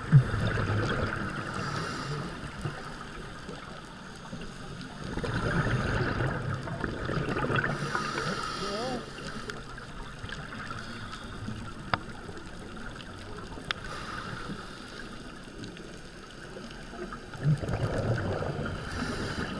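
Scuba diver's regulator exhaust bubbles heard underwater through a camera housing: a rushing burst of bubbles swells up three times, at the start, around the middle and near the end, with a quieter hiss between.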